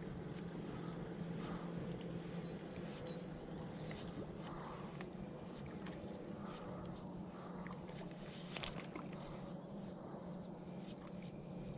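Quiet outdoor ambience at a pond: a steady low hum under a light hiss, with a few faint scattered clicks.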